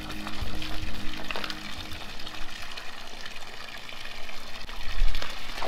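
Water pouring in a steady stream from a pool's curved spout into the pool, with the light slosh of a leaf-skimmer net being swept through the water.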